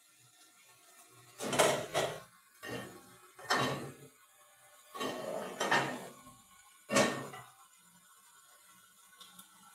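Cookware being handled: about six knocks and clanks as a frying pan and glass lid are set down and moved about on a gas stove, spread over several seconds.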